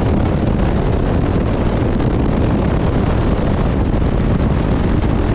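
Bass boat running at speed: loud, steady wind rush buffeting the microphone over the outboard motor's drone.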